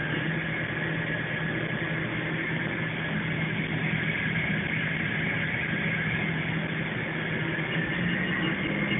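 Spindle of a Haas VF-2 CNC vertical mill running, a steady high whine over a low hum, the whine's pitch creeping slowly upward as the spindle speeds up.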